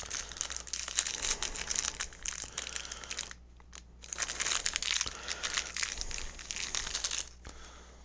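Crumpled paper packaging crinkling as it is handled and unwrapped around a replacement ball bearing, in two stretches with a short pause about three seconds in.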